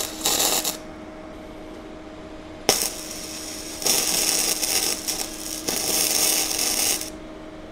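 Flux-core MIG welding arc from a YesWelder DP200 running 0.035-inch gasless wire, crackling and spitting as tacks are laid. One tack ends just under a second in; after a sharp click near the middle, two more runs of arc of about a second and a half each follow. A low steady hum sounds between the welds.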